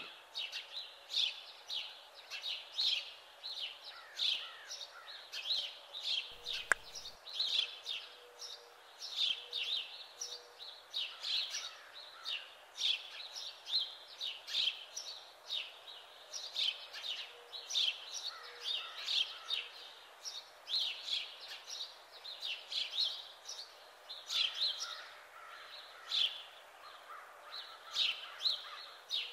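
Small birds chirping, short high chirps repeating several times a second without a break, with a single sharp click about seven seconds in.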